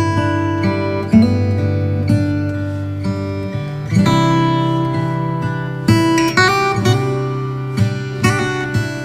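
Background music on acoustic guitar: slow chords struck every second or two and left to ring.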